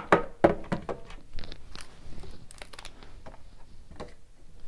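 Hands handling a card box and foil card pack: a string of light clicks, taps and faint crinkles, with a couple of sharper knocks in the first half second.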